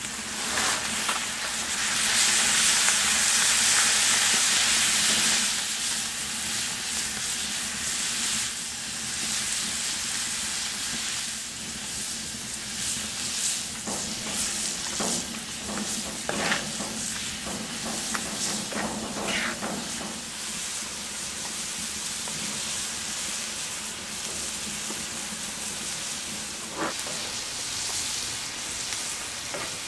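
Moose meat, mushrooms and vegetables sizzling in a wok over an open wood fire. The sizzle is loudest for a few seconds just after peas are tipped into the pan, then settles to a steady frying hiss. A wooden spatula scrapes and stirs the pan several times.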